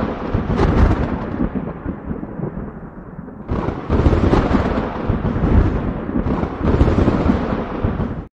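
Thunder sound effect: a rumbling thunderclap that fades over the first few seconds, then a second thunderclap about three and a half seconds in that rumbles on until it cuts off suddenly near the end.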